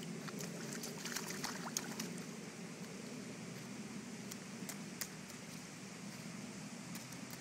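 Small wet splashes and squelches of a toddler's boots shifting in a shallow muddy puddle, heard as scattered sharp little clicks, more of them in the first couple of seconds, over a steady low outdoor rumble.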